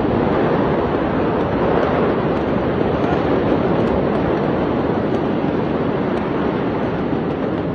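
Steady rushing noise with no distinct events, easing slightly toward the end.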